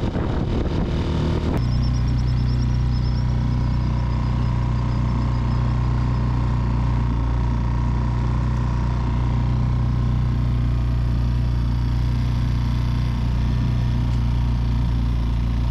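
Mercury F 3.5 four-stroke outboard motor running steadily at a constant speed. The sound changes abruptly about a second and a half in, then holds even.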